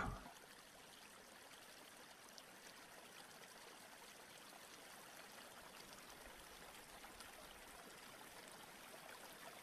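Faint, steady flowing of a small stream.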